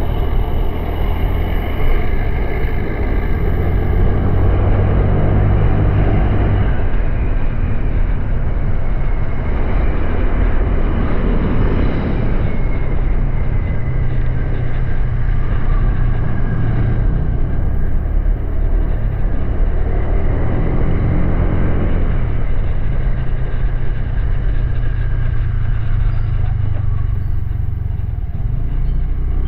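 Honda Click 125i scooter's single-cylinder four-stroke engine running steadily while riding, with wind noise on the microphone that swells and eases a few times.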